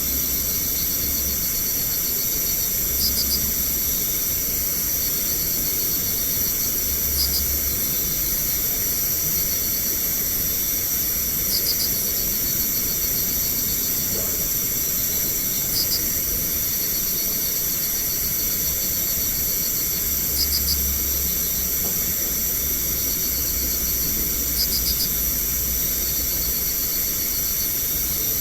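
Night insects, crickets among them, calling in a steady high-pitched chorus over constant hiss. A short pulsed chirp comes back about every four seconds.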